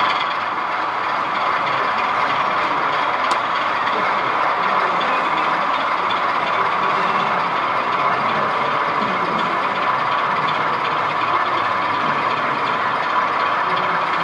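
Model diesel locomotive running slowly on a model railway layout, hauling a rake of tank wagons: a steady, unbroken running sound.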